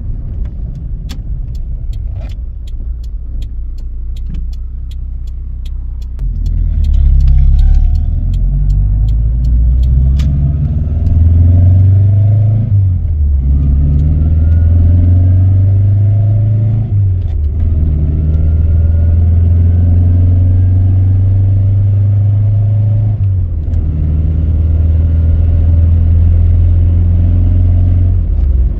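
Toyota Tercel wagon's four-cylinder engine heard from inside the cabin, pulling away and accelerating. Its note climbs and drops back at three gear changes. A regular clicking runs through the first ten seconds.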